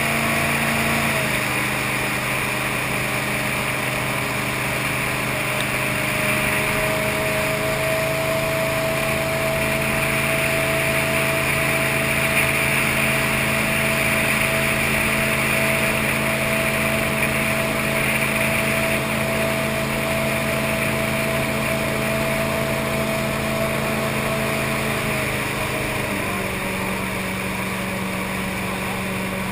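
V8 engine of a tunnel-hull jet boat running steadily under way, over a steady rushing hiss. The engine note drops a little about a second in and again near the end.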